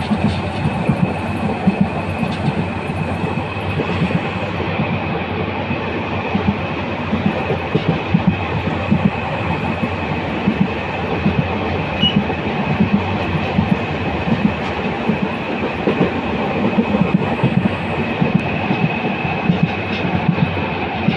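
Train running along the track, heard from on board: a steady rumble and rattle with frequent sharp clacks of the wheels over rail joints, and a thin steady high-pitched whine throughout.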